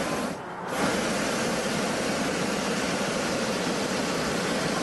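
Hot air balloon's propane burner firing with a steady rushing noise. It breaks off briefly about half a second in, then fires again in one long blast.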